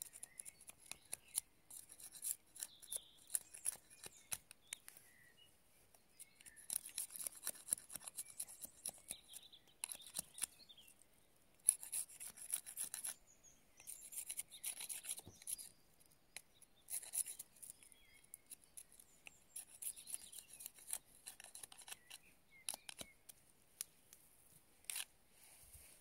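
A knife whittling a thin wooden stick: repeated short bursts of shaving and scraping strokes, each a second or so long, with pauses between.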